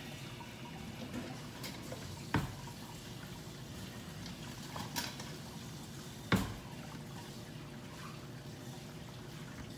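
Donuts deep-frying in a skillet of hot oil, a steady bubbling sizzle, with two sharp pops about two and a half and six and a half seconds in.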